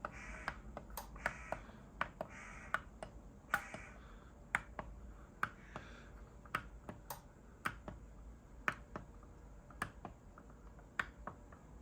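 Front-panel push buttons of an Onkyo TX-NR717 AV receiver being pressed one after another. Each press gives a sharp click, about two a second at an uneven pace.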